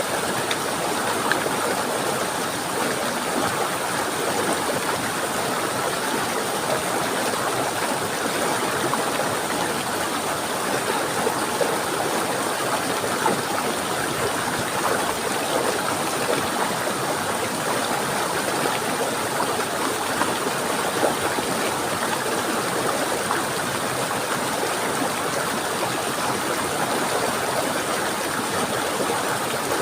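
Steady rushing and splashing of a flowing stream, an even unbroken water sound with small bubbling flickers throughout.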